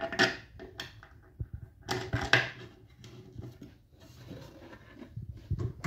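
Handling noise from pine furniture parts being worked by hand: short knocks and scrapes of wood, loudest about a quarter second in and again around two seconds in, with a few small clicks between.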